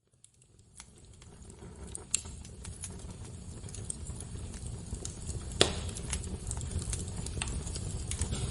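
Fire crackling, with irregular sharp pops over a low steady rumble, fading in from silence over the first few seconds. One pop a little past halfway is the loudest.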